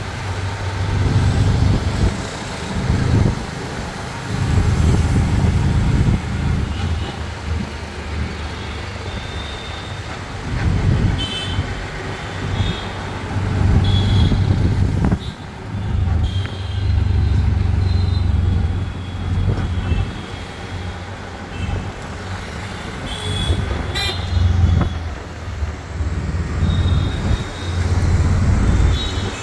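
Auto-rickshaw engine and road noise heard from inside the open cab, swelling and easing as it speeds up and slows in traffic. Short horn toots from the surrounding traffic sound several times.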